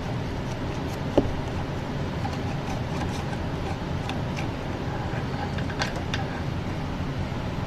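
Steady low background rumble with a few faint, scattered metallic clicks and taps from a 7 mm nut driver working the nuts on an espresso machine's steam boiler safety thermostats.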